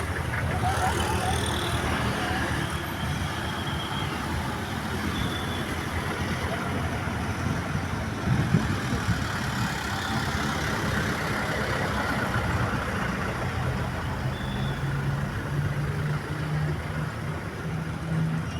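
Steady roadside traffic noise from passing motor vehicles. A heavy vehicle's low engine drone comes in about two-thirds of the way through and holds to the end.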